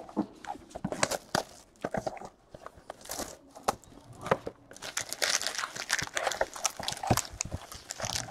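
Cardboard trading-card box and card packs being handled: scattered clicks and taps, then denser crinkling and rustling from about five seconds in as the box is opened.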